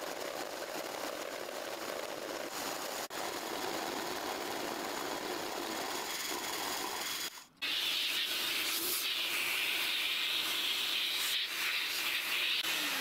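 Milling machine running an end mill through a slot cut in a steel tool-post block, a steady cutting noise. After a break about halfway, a vacuum cleaner sucks up the swarf with a steady hiss, and its motor pitch starts to fall at the very end as it is switched off.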